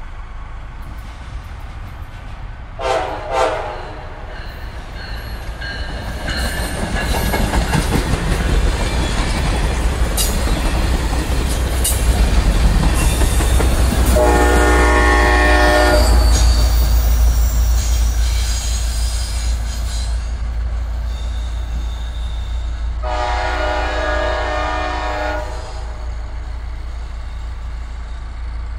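Amtrak Piedmont passenger train passing close by: two short horn toots as it approaches, then the low rumble and wheel clatter building as the cars go by, loudest as the EMD F59PHI diesel locomotive pushing at the rear passes. A longer horn blast sounds about halfway through and another a few seconds later, as the rumble eases off.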